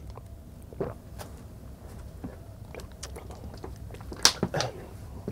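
A person drinking from a plastic bottle: quiet sips and swallows with scattered small clicks, and one sharper click about four seconds in.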